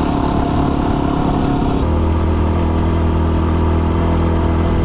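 Yamaha WR250R's single-cylinder four-stroke engine running under way as the dual-sport motorcycle climbs a dirt road, its note changing about two seconds in and then holding steady.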